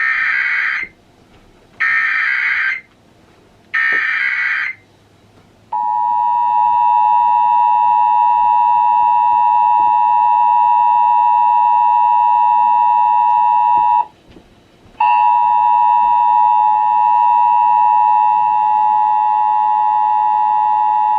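Emergency Alert System signal from an AM/FM radio broadcast: three short screeching bursts of SAME header data, one after another, then the steady two-tone attention signal. The two-tone attention signal breaks off for about a second partway through, then resumes.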